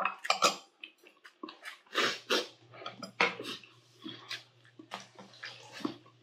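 Close-up eating sounds: wet slurping and chewing, with a metal spoon clinking and scraping in a ceramic bowl, made up of many short, sharp sounds. A faint steady hum comes in about two seconds in.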